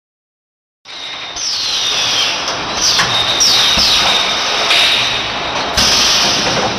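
Automatic sauce filling machine running, starting about a second in: a steady high whine over a noisy hiss, with several short falling squeals, a few sharp knocks and bursts of air hiss from its pneumatic valves.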